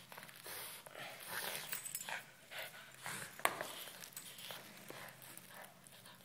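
French bulldog playing with a broom: irregular scuffs, scrapes and swishes on the floor, with one sharp knock about three and a half seconds in.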